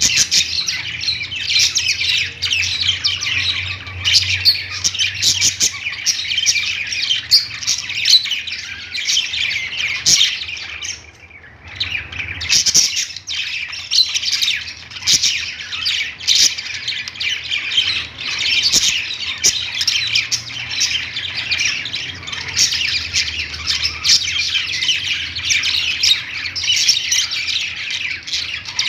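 A group of budgerigars chattering and chirping without pause, many rapid overlapping calls, with a brief lull about eleven seconds in. A faint low hum runs underneath.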